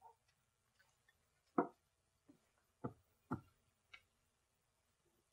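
A few soft, scattered knocks and thuds, about five over two seconds, in an otherwise near-silent room.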